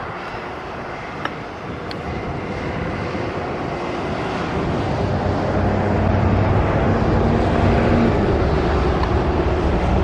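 A low engine rumble that grows steadily louder over several seconds, with a steady low hum through the second half.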